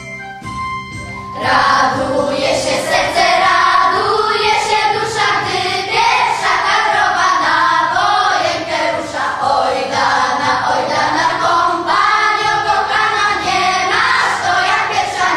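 Children's choir singing together, coming in loudly about a second and a half in after a few soft instrumental notes; the singing stops just before the end.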